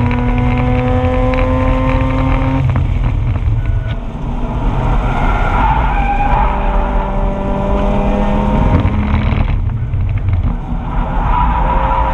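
A 2004 Mazda RX-8's two-rotor rotary engine revving hard on track, heard from inside the car. It climbs in pitch, drops off about two and a half seconds in, then pulls again, with the tyres squealing through a corner in the middle.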